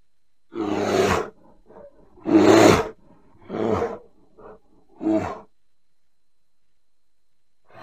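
Bear vocalizing: four deep calls over about five seconds, each under a second, with fainter short sounds between them, then a pause.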